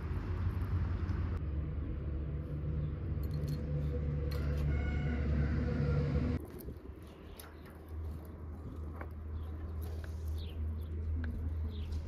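A steady low motor hum, like an engine running at a distance, that cuts off abruptly about six seconds in. Quieter outdoor ambience with a few faint high chirps follows.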